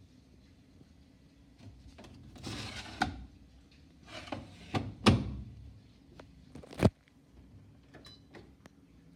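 Parts of a washing machine being handled: two stretches of sliding and rubbing, each ending in sharp knocks, with one last hard knock about seven seconds in that cuts off suddenly.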